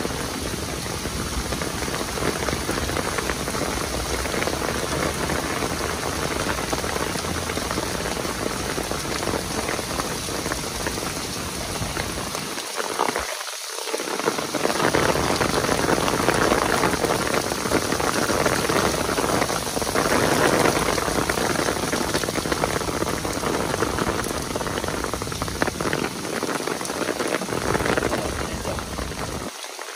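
Heavy downpour: a dense, steady hiss of rain falling and splashing, louder for several seconds in the middle.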